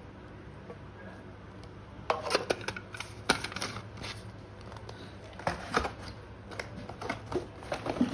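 Packaging being handled: after a quiet start, irregular crinkles and clicks of plastic and cardboard from about two seconds in.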